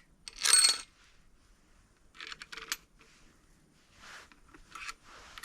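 Rustling and light clicks of small hardware being handled: new aluminium bolts for an engine's oil pump being picked up and sorted. The loudest rustle comes about half a second in, with scattered clicks later.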